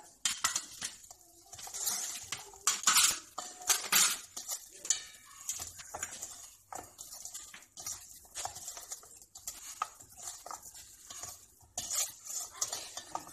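A bare hand mixing raw chicken pieces with spice powders in a stainless steel bowl: the pieces knock and scrape against the metal in irregular clatters.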